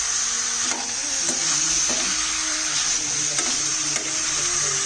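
Chunks of pork sizzling as they fry in oil in a pan, stirred with a spoon that clicks against the pan now and then. The sizzle is steady.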